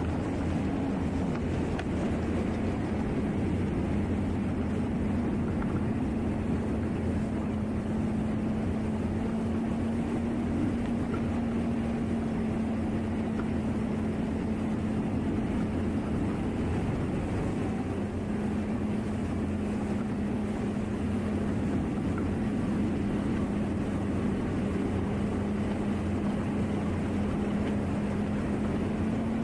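Yamaha 275 outboard on a Triton 21XS bass boat running at high speed over a steady rush of wind and water. Its note drops slightly about a second and a half in as the boat eases off from near top speed, then holds steady.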